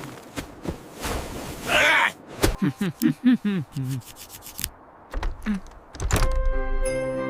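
Cartoon slapstick sound effects: scattered taps and knocks, a whoosh about two seconds in, then a character's short strained groans and grunts. A heavy thud comes about six seconds in, and music starts right after it.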